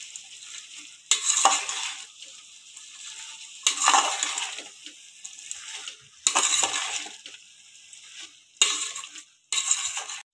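Basmati rice and chopped vegetables stirred and turned with a spatula in a large steel pot over high heat: five scraping, rustling strokes about two and a half seconds apart, the last two close together, with faint sizzling between them.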